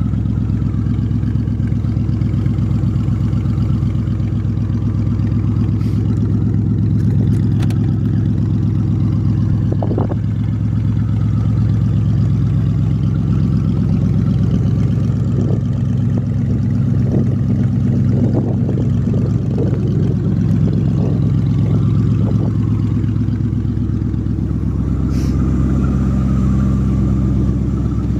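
1995 Lincoln Town Car's 4.6-litre V8 running after a cold start on open headers, with no exhaust pipes fitted, a loud, steady exhaust note that turns slightly rougher for a stretch in the middle. Under it is a noise the owner puts down to a bad idler pulley.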